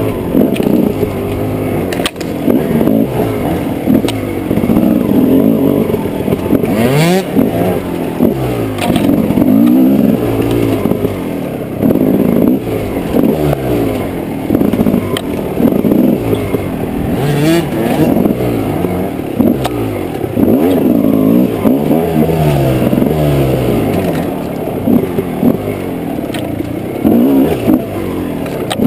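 Dirt bike engine heard from on the bike, revving up and dropping back over and over as the rider works the throttle and gears along a rough trail, with a few sharp knocks and scrapes.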